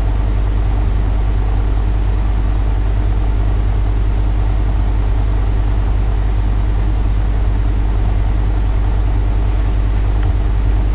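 Loud, steady low electrical hum with a buzzy overtone, unchanging throughout.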